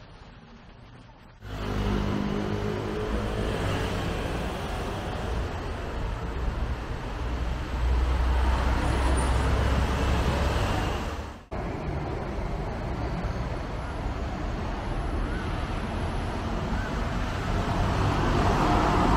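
City street traffic noise: engines and tyres, cutting in suddenly about a second and a half in. A heavy truck's engine adds a louder low rumble for a few seconds around the middle.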